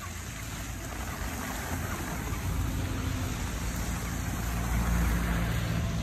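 A vehicle driving past, its tyre and engine noise swelling steadily to a peak about five seconds in, with a low engine hum underneath.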